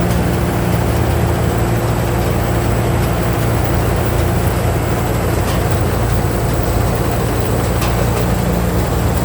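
Combine harvester's engine running steadily, a constant low drone with no change in speed.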